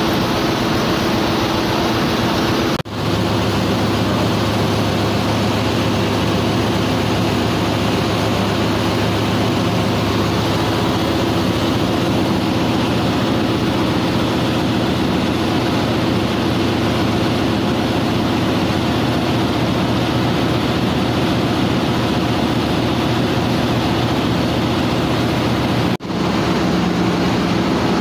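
Loud, steady ship engine-room machinery noise: a constant drone with a low hum. It cuts out for a moment twice, about three seconds in and near the end.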